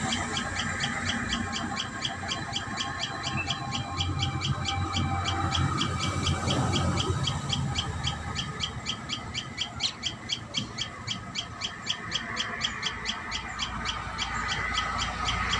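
Common tailorbirds at their nest giving a rapid, even series of short high chirps, about six a second, over a low background rumble.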